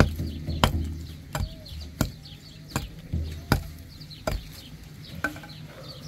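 Steady, repeated blows of a hand tool striking wood, about one every two-thirds of a second, spacing out slightly toward the end.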